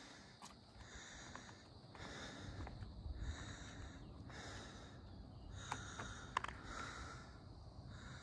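A person breathing hard and rhythmically, about one breath a second, with a couple of faint clicks near the end.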